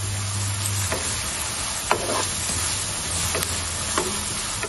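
Chopped onions and curry leaves sizzling steadily in oil in a pan on a low flame, with a wooden spatula scraping the pan a few times.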